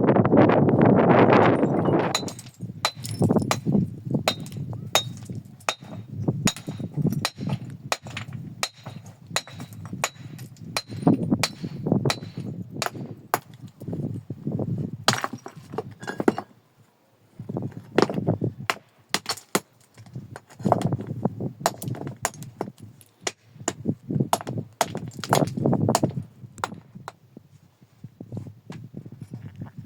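Rocks knocking and clinking against one another as they are handled and stacked by hand, with scraping and rustling between the knocks, which come irregularly; a dense burst of scraping in the first two seconds.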